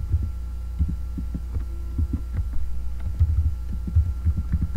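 Computer keyboard keystrokes picked up as irregular dull low knocks, several a second, over a steady electrical hum.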